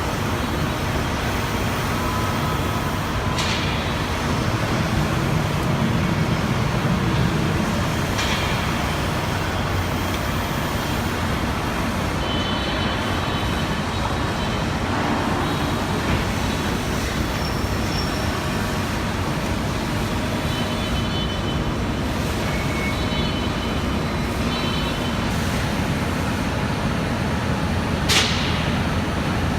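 Steady hum and rumble of running industrial machinery, broken by a few short sharp hisses, the loudest near the end.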